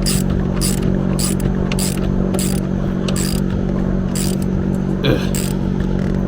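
Hand ratchet tightening seat bolts, its pawl clicking in short bursts on each backswing, roughly one to two strokes a second, over a steady low hum.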